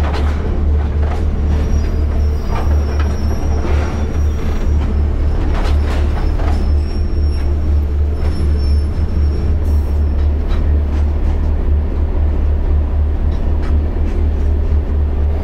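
Long, heavy iron ore freight train running, heard from on the wagons: a loud, steady low rumble with occasional sharp knocks and a faint high wheel squeal now and then.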